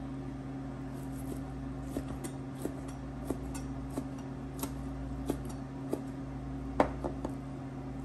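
Kitchen knife slicing a cooked rib steak on a plastic cutting board, the blade knocking on the board about every two-thirds of a second, with the loudest knock near the end. A steady low hum runs underneath.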